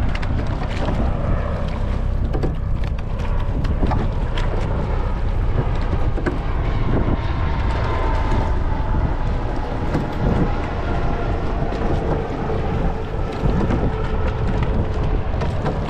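Wind buffeting the microphone over the water noise of a rowing eight under way, with scattered knocks typical of oars being feathered and squared in their oarlocks during slow strokes.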